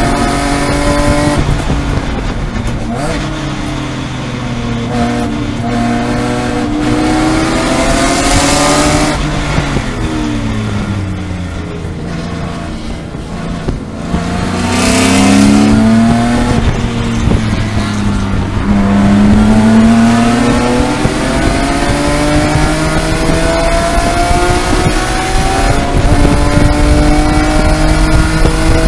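BMW E46 M3 race car's S54 3.2-litre straight-six heard from inside the cabin under racing load. The engine note rises through upshifts, falls through downshifts as the car brakes for a slow corner about halfway through, then climbs again gear by gear as it accelerates out.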